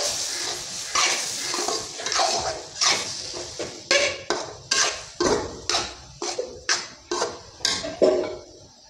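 Metal ladle scraping and knocking against an aluminium kadai while stirring roasting gram flour (besan), in quick strokes that settle into about two a second and die away near the end.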